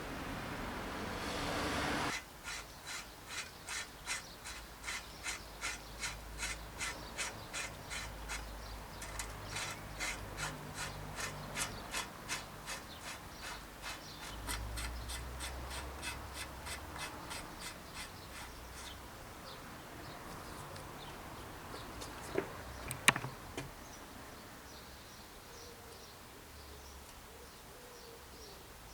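A mechanical clicking, evenly spaced at about two to three clicks a second, fading away after about a quarter of a minute, then two sharp knocks.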